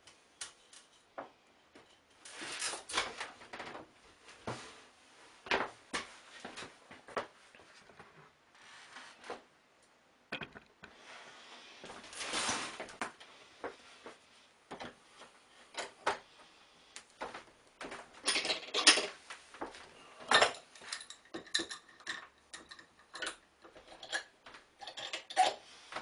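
Irregular wooden knocks, clicks and short scraping or rubbing sounds as thin wood veneer strips and small wooden blocks are handled and set down on a wooden workbench while a veneer stack is glued up. The loudest knocks come a little past the middle, and near the end a steel C-clamp is fitted over the wooden caul.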